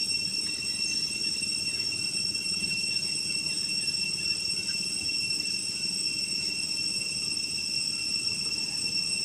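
Steady high-pitched insect drone, held on one pitch without a break, over a low even outdoor rumble.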